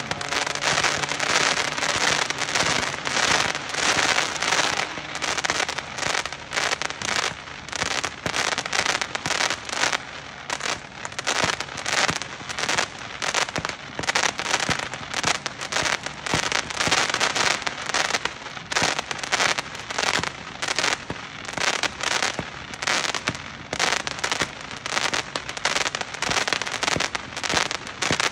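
A 100-shot, 200-gram consumer firework cake firing continuously, a rapid stream of pops and crackle several shots a second.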